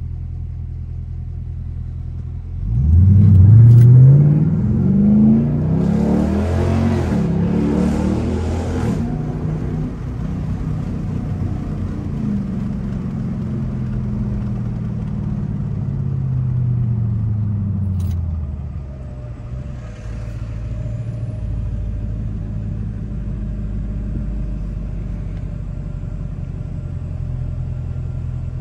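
Straight-piped 2021 Dodge Durango R/T's 5.7-litre Hemi V8, heard from inside the cabin. It idles, then accelerates hard about three seconds in, rising in pitch through a gear change. It cruises loudly, then eases off with falling pitch and drops back to a steady low idle for the last several seconds.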